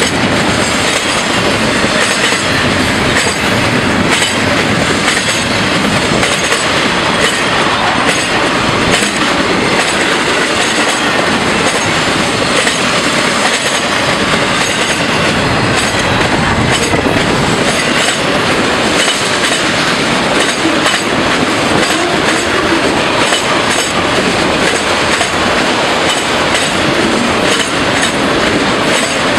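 Freight train of double-stack container cars and autorack cars rolling past close by: a steady, loud rumble and clatter of steel wheels on the rails, with a regular clickety-clack.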